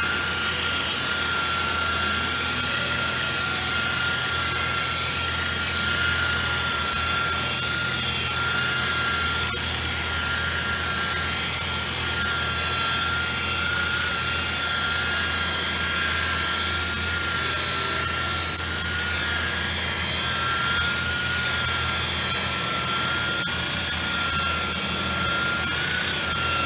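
Electric rotary polisher running steadily, its buffing pad working a polished metal aircraft skin during brightwork polishing: a continuous motor whine that wavers slightly in pitch.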